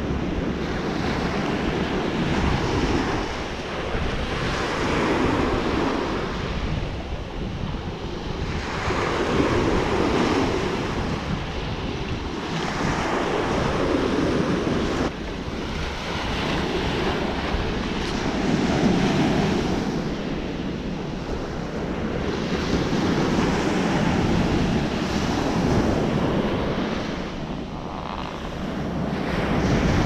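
Small waves breaking and washing up a sand beach, the surf swelling and fading every four to five seconds, with wind rumbling on the microphone.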